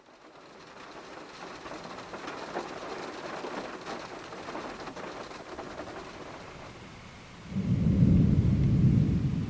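Steady rain hissing down, then a loud, low rumble of thunder sets in suddenly about three quarters of the way through and rolls on.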